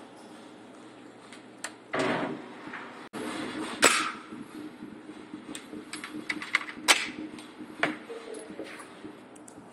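Small metal clicks and light knocks of pistols being handled over a foam-lined hard gun case, scattered and irregular, with a couple of sharper clicks about four and seven seconds in.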